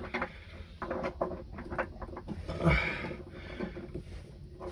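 Tongue-and-groove pliers clicking, knocking and scraping against a stuck metal hose fitting as it is wrenched: a scattered run of small clicks, with a louder rasping noise a little past halfway.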